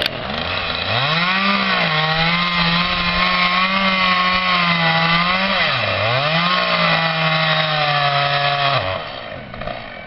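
Two-stroke chainsaw revving up to full throttle about a second in and held there cutting into ash wood, its pitch dipping briefly once midway before climbing back, then dropping off near the end as the throttle is released.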